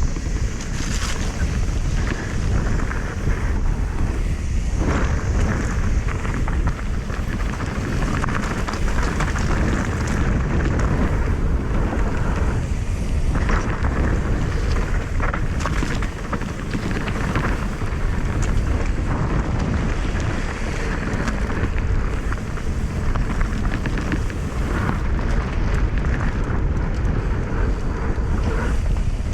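Wind buffeting the microphone over the rumble and crunch of mountain bike tyres on a dry dirt and gravel trail, ridden downhill at speed.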